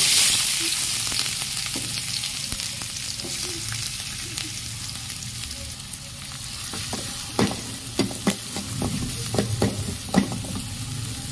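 Chopped onions dropped into hot oil in a kadhai, hissing loudly at once and then sizzling steadily as they fry. From about seven seconds in, a perforated metal spatula scrapes and knocks against the pan as the onions are stirred.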